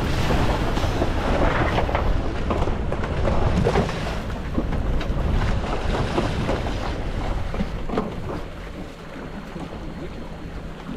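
Wind buffeting the microphone over splashing seawater around a boat's stern as divers go into the water, with many short splashes in the first part. The noise eases and grows quieter about eight seconds in.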